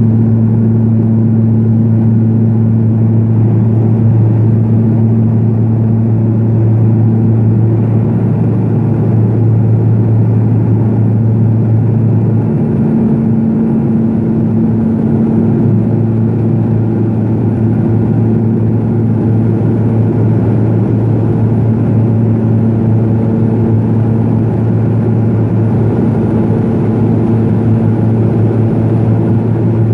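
Cabin noise of a Pilatus PC-12 climbing after takeoff: its single Pratt & Whitney PT6A turboprop and propeller make a loud, steady drone with a low propeller hum and its overtones over a rushing rumble.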